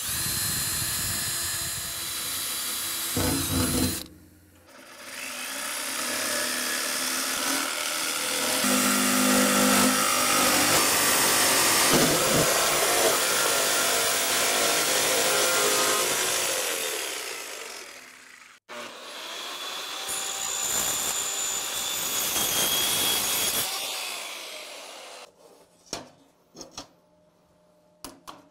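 A cordless drill bores a starter hole through aluminum sheet for about the first four seconds. Then a jigsaw cuts through the aluminum panel in two long runs with a short break between them. A few light clicks near the end.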